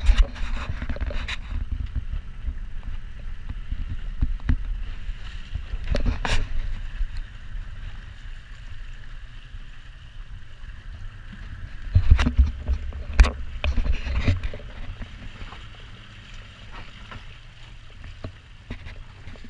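Small open boat under way slowly on the sea: a steady low rumble of wind and water on the microphone, with a few sharp knocks at the start, about six seconds in and three times between twelve and fourteen seconds.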